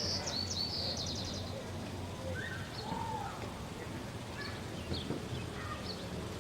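Small birds chirping, with a quick high trill in the first second and a half and scattered short calls after, over a steady low hum.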